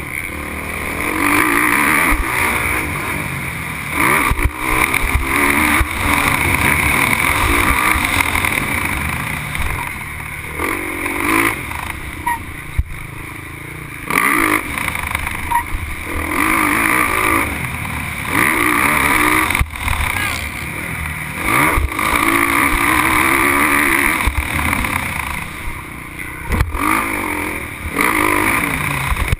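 Motocross bike engine heard from an onboard camera, revving up and dropping back again and again as the rider works through the track, with a few sharp knocks along the way.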